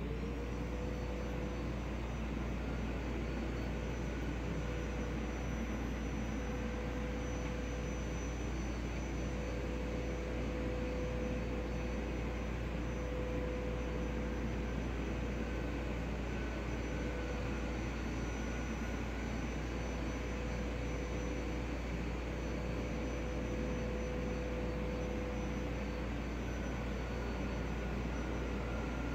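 A steady mechanical drone with a low hum and a faint, slightly wavering whine in it.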